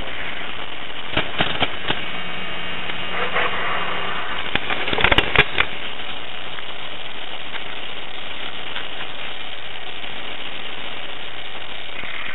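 Steady wind noise buffeting a small camera's microphone, with a few sharp clicks about a second in and a louder cluster of clicks and knocks around five seconds in.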